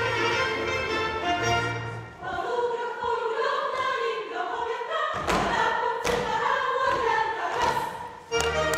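Live Polish folk string band playing a Sącz-region dance tune with a steady bass, then dropping its bass while a group of voices sings a folk verse, with two sharp stomps about five and six seconds in. The bass comes back in near the end.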